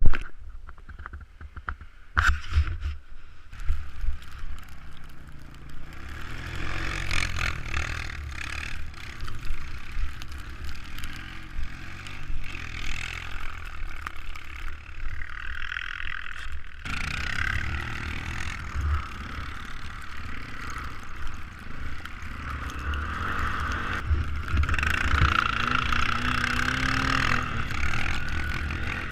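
Small off-road engines running and revving, with rough low rumbling on the microphone. The sound cuts off abruptly about seventeen seconds in and resumes, and a revving engine's pitch rises and falls near the end.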